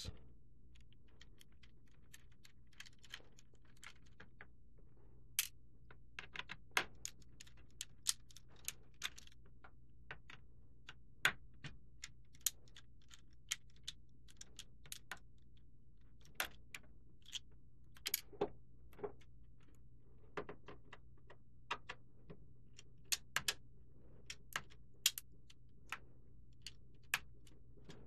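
Irregular small clicks and taps of a precision Torx T5 screwdriver working the screws out of a Lenovo Yoga 2 Pro's aluminium bottom panel, over a faint steady low hum.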